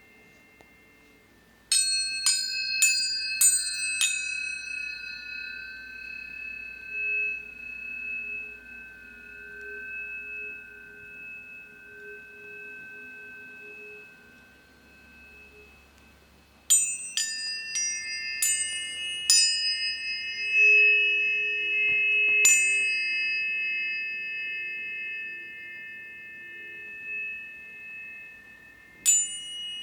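Tuning forks struck in quick runs of about five sharp strikes, their clear high tones ringing on and slowly fading. A second run of strikes comes about halfway through, and a third starts near the end.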